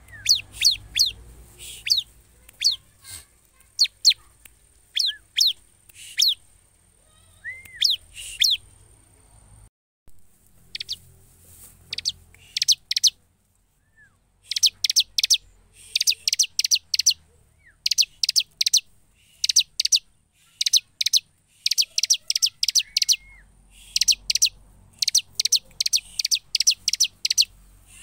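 Bar-winged prinia (ciblek) calling: a long series of sharp, high chirps. They are spaced out at first, then come in quick rattling runs from about halfway in.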